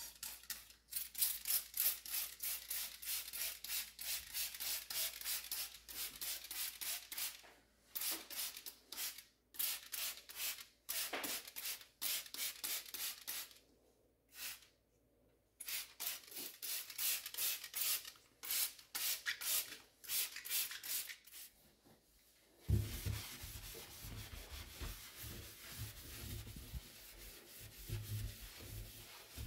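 Trigger spray bottle squirting cleaning liquid onto a stainless steel sink, pumped rapidly in runs with short pauses. About three-quarters through it gives way to a scouring sponge rubbing steadily over the stainless steel drainboard.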